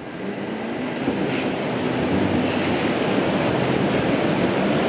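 A Niva fording a fast mountain river slowly: its engine runs under a steady rush of water, the whole sound growing gradually louder.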